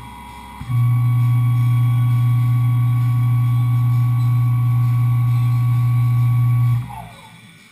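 Tormach 1100M CNC mill running with a steady, loud mechanical hum. The hum dips for under a second near the start, then winds down with a falling whine about seven seconds in, as the spindle stops.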